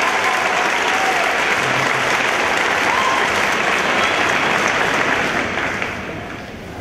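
Audience applauding steadily, with many hands clapping, fading out over the last second or so.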